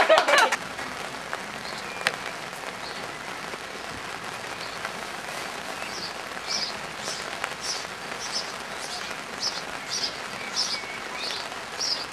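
Steady hiss of rain on open ground, with the last claps of a round of applause dying away in the first half second. From about five seconds in, a bird chirps over and over, short high notes about twice a second.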